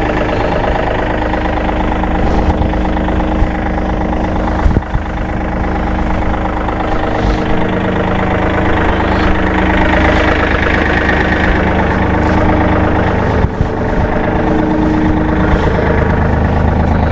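A vehicle engine idling steadily, with a single knock about five seconds in.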